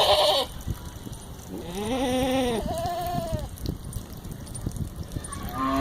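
Rajanpuri goats bleating: a short loud call at the start, two arching bleats about two and three seconds in, and a long, steady call beginning near the end.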